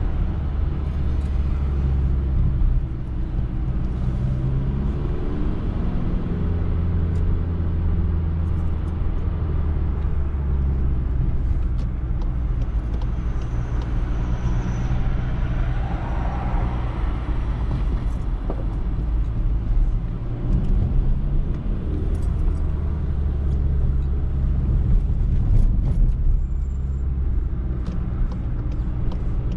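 Volkswagen Polo's engine and tyre noise heard from inside the cabin while driving in traffic: a steady low drone whose pitch shifts a few times as the car changes speed.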